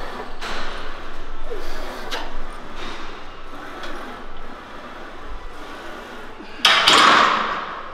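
Set of flat bench presses on a Smith machine: faint noises repeating roughly once a second with the reps, then a loud sudden noise lasting under a second near the end.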